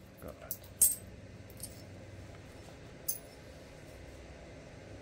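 Flint knapping: a handful of short, sharp clicks and clinks of flint being worked, the loudest a little under a second in and another about three seconds in.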